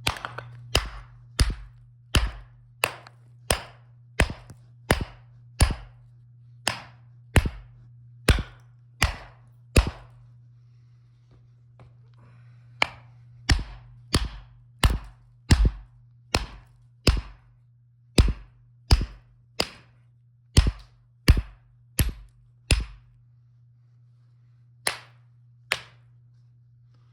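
Electromagnetic jack hammer attachment striking rock: sharp, evenly spaced knocks at about one and a half a second, in two runs of about a dozen blows with a short pause between, then two more blows near the end, over a steady low hum.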